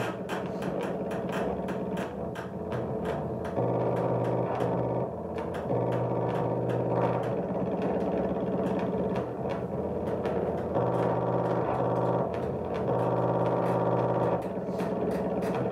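Free improvisation on bowed cello and no-input mixing board: low held tones rich in overtones, each lasting a second or two with short breaks between, over a steady crackle of clicks.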